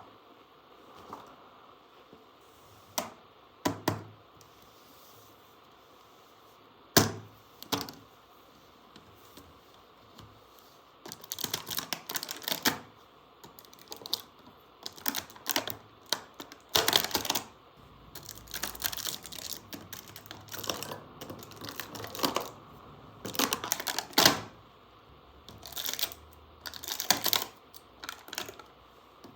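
Small hard plastic toy pieces being handled, giving sharp clicks and rattles: a few isolated clicks at first, then busy, irregular clicking from about a third of the way in.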